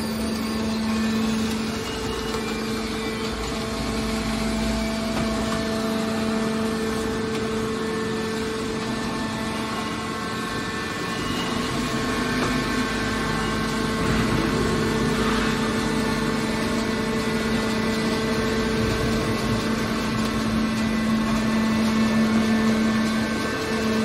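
Hydraulic scrap metal baler's power unit running with a steady hum.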